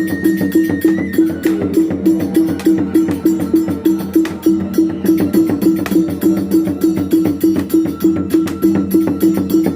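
Traditional Sasak peresean accompaniment music. A fast, even beat of gong and drum strokes, about three a second, runs with sharp cymbal-like strikes and a thin, high, held melody line above.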